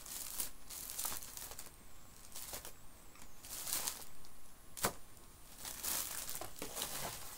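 Plastic sweet packaging crinkling and rustling as it is handled, in irregular bursts, with one sharp click about five seconds in.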